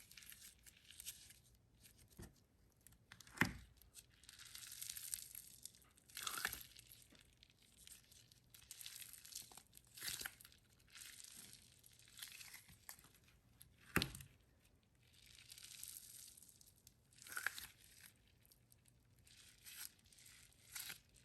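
Hands squeezing and rolling a jumbo gel stress ball filled with thick gel, water beads and styrofoam confetti: faint rustling in repeated waves of a second or two, with a few sharp clicks, the loudest about 3 and 14 seconds in.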